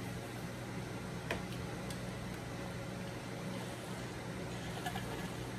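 Steady low hum with a few faint clicks.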